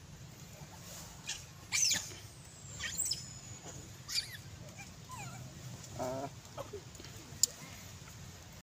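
Macaques calling: three short, high-pitched squeals that fall in pitch, about two, three and four seconds in, then a lower, pitched call around six seconds. A single sharp click comes near the end.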